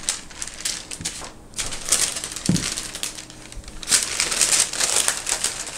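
Rolling pin pressing dough between two sheets of parchment paper, the paper crinkling and rustling with each stroke, in a few repeated strokes with short pauses between.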